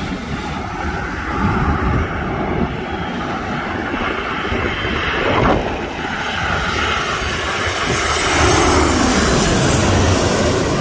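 Airliner engines passing close by: a steady rush of noise that grows louder over the last few seconds, with a high whine coming in near the end.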